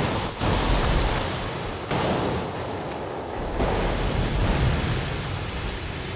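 Ocean surf: waves breaking and washing in below, a steady rush that swells a few times.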